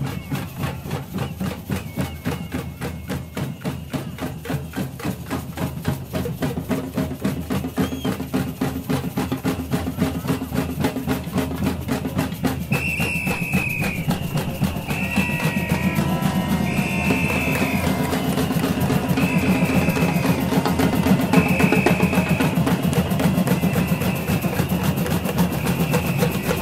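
Batucada percussion band playing a steady samba rhythm on surdo bass drums and snare drums. About halfway through, a samba whistle begins blowing repeated blasts of about a second each, six in all, over the drumming, which grows louder.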